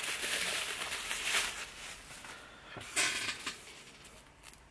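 Plastic blister packaging crinkling and rustling as a rubber archery damper is packed back into it. There is a longer bout at first, then a shorter one about three seconds in.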